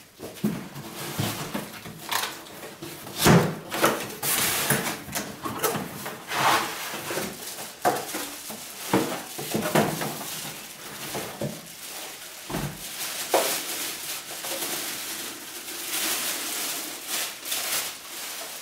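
Cardboard box and plastic wrapping being handled as a heavy item is lifted out: irregular knocks and thumps on the cardboard, mixed with rustling and crinkling.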